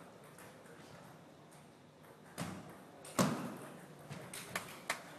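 Sharp clicks of a table tennis ball in play: a single click a couple of seconds in and a louder hit that rings on briefly. Near the end comes a run of sharp clicks about three a second.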